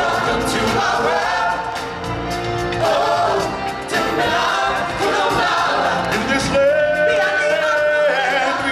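Stage singers performing an African-style song, a male lead singing into a microphone with other voices joining like a choir, amplified through the theatre's sound system. The singing holds long notes, one held steadily near the end.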